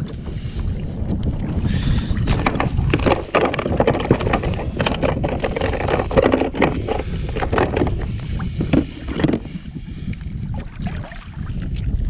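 Wind buffeting the microphone on a kayak at sea, with a run of knocks, clicks and rustles from about two seconds in to about nine seconds as a mackerel is handled and unhooked from a string of feathers.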